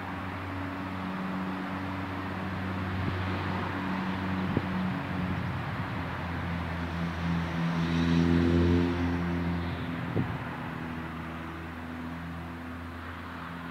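An engine drones steadily, swelling to its loudest a little past the middle and then easing off. Two short knocks come partway through.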